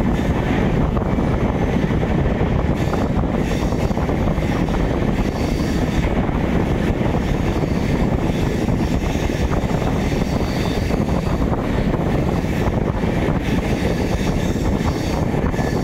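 Express passenger train running at speed: a steady rumble of wheels on the track, with wind buffeting the microphone.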